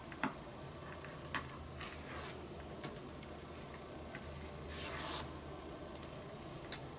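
Masking tape being peeled off the edges of drawing paper: a few short rasping rips, the longest around two seconds in and around five seconds in, with a light tick near the start.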